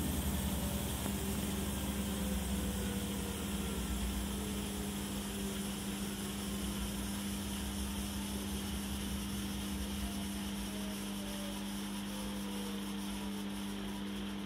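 Gorenje front-loading washing machine's drum motor running with a steady hum and faint whining tones that slowly fall in pitch, a low rumble fading out after about ten seconds as the drum slows. An airplane-like sound that the owner suspects means the motor is going bad.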